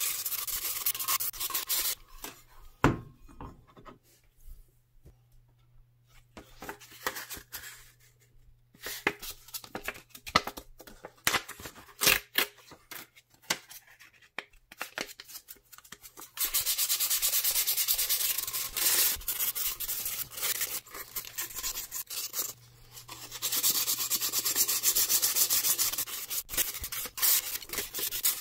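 Sandpaper rubbed by hand over the sheet-metal body of a Browning machine gun oiler, in quick back-and-forth strokes. It comes in several spells with quieter pauses between them, and there is a single sharp knock about three seconds in.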